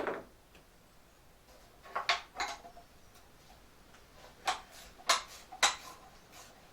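Metal hand tools and parts clinking and clacking on a bench: a knock at the start, a few clinks about two seconds in, then three sharp metallic clacks about half a second apart.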